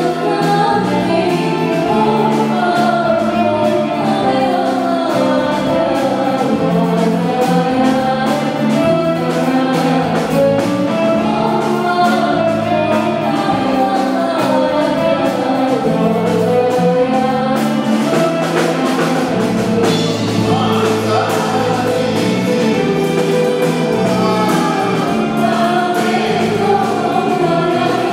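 Live Comorian twarab music: a group of women singing together into microphones over electronic keyboard, with held low notes and a steady beat.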